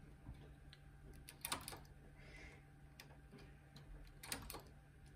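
Faint, irregular clicks of metal knitting-machine needles being pushed by hand on the lower needle bed (ribber), setting every other needle out of work. The loudest clicks come about a second and a half in and again near the end.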